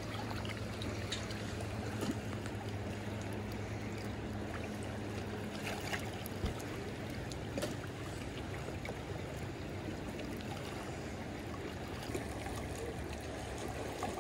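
Fast, high Kenai River water rushing and swirling steadily around a wader standing waist-deep. A low steady hum sits under it for the first several seconds, then fades out.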